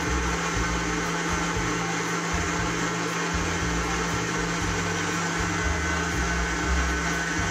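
Electric stand mixer running steadily, its beater whipping butter in a steel bowl as spoonfuls of custard are added to make buttercream. A constant motor hum with an uneven low rumble from the beater working the mass.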